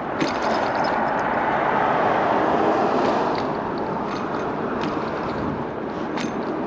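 Steady rushing noise of riding an electric scooter: wind and tyre-on-road noise, with a few light clicks.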